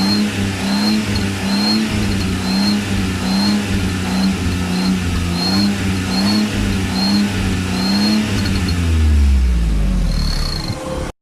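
Small Suzuki car's engine blipped again and again, about one and a half revs a second, with a turbo whistle fitted in the exhaust silencer giving a short high whistle on each rev. Near the end the engine drops back and one longer whistle sounds before the sound cuts off suddenly.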